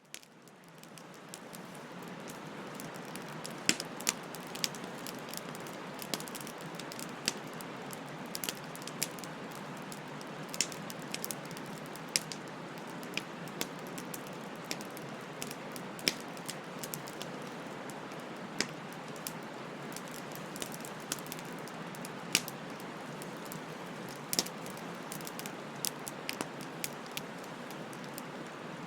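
Wood bonfire burning: a steady hiss of flames with irregular sharp crackles and pops. It fades in from silence over the first two seconds.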